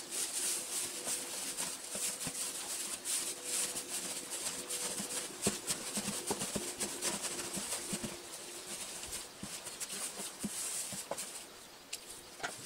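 Dry hay rustling and crackling in irregular bursts as it is stuffed into a wooden baling box and trampled down underfoot.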